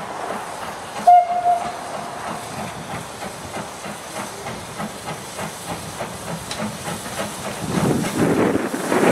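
LMS Fowler 'Jinty' 0-6-0 tank locomotive 47406 gives one short whistle about a second in, then works its train with steady steam exhaust beats, about three a second. The beats grow louder near the end as the engine draws near.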